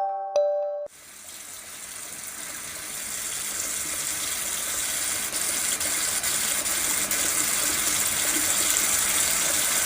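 Steady hiss of running water, growing louder over the first few seconds after a short chime melody cuts off about a second in.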